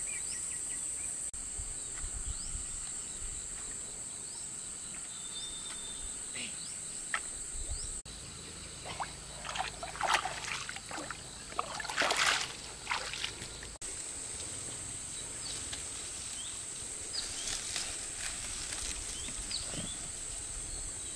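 Water splashing and sloshing in a run of sharp bursts from about eight to thirteen seconds in, over a steady high hiss and faint chirps.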